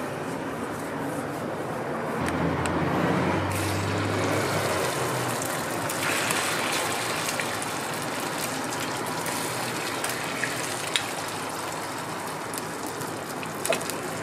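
Beaten egg ladled onto a hot steel griddle, pouring and sizzling as it spreads into metal frames, louder for a few seconds early on. A few light clicks of the metal ladle against the frames near the end.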